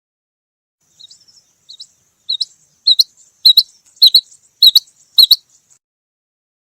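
Female rain quail calling: a run of about eight short, high double notes about half a second apart, faint at first and then loud from about halfway through.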